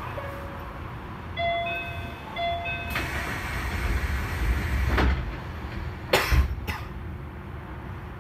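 Osaka Monorail 3000 series train at a station: a short electronic door chime sounds twice, then a hiss of air and two thuds as the sliding doors close.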